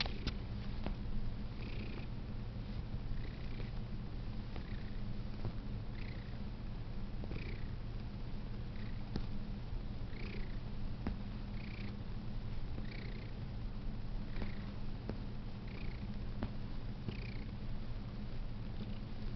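Domestic cat purring steadily, with a faint higher sound coming back about every one and a half seconds.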